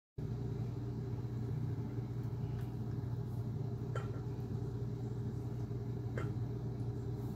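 Steady low hum that starts abruptly just after the beginning, with a few faint clicks over it.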